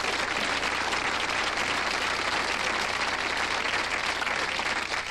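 Sitcom audience applause: many people clapping together, a dense, steady crackle that drops away right at the end.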